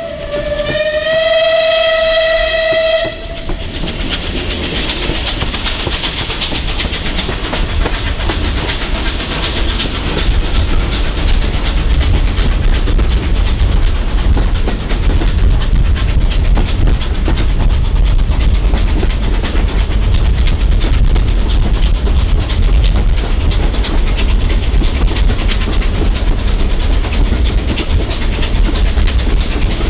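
Steam locomotive's whistle blowing, heard from a carriage window: the end of one blast, then a second blast of about two and a half seconds that stops about three seconds in. After it, the train runs on inside a tunnel, a loud steady rumble of wheels and locomotive that grows deeper and louder after about ten seconds.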